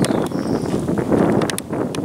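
Water splashing and dripping around a rainbow trout held in both hands over the shallows, with wind buffeting the microphone.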